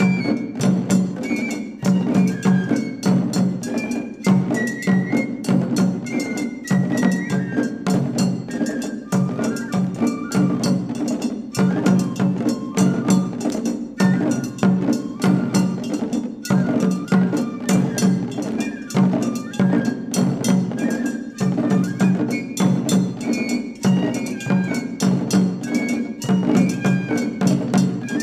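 Japanese matsuri-bayashi festival music: a shinobue bamboo flute plays a high, ornamented melody over quick, steady strokes of small shime-daiko stick drums and a larger barrel drum.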